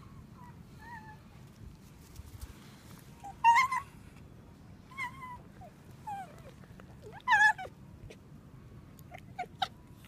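Red fox calling: a string of short, high-pitched calls, several sliding down in pitch. The two loudest come about three and a half and seven seconds in, with a few quick short ones near the end.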